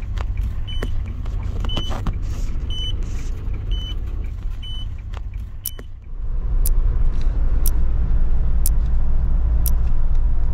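Camper van driving, heard inside the cabin as a steady low road rumble, while a tyre-pressure monitor gives short high beeps about once a second, warning of a punctured tyre. About six seconds in it cuts to louder road rumble with a sharp tick each second.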